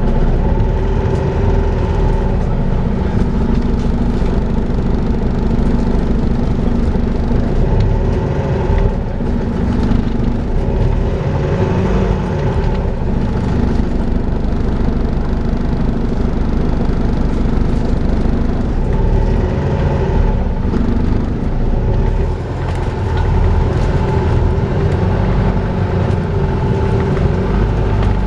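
Volvo B5LH hybrid double-decker bus running, heard from on board: a steady vacuum-cleaner-like whine ('hoovering') over engine and road noise, easing briefly about two-thirds of the way through.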